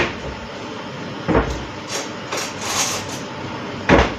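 Kitchen clatter: a few sharp knocks and bangs of cookware and utensils being handled, the loudest right at the start and about four seconds in, over a steady background hiss.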